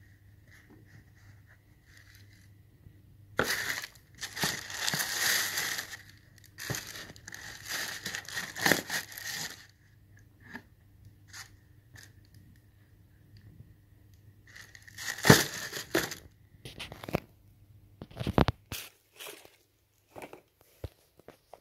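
Tissue paper rustling and crinkling inside a cardboard shoebox as leather sneakers are lifted and handled, in several bursts with pauses between. There are a few sharp clicks and a low knock of handling near the end.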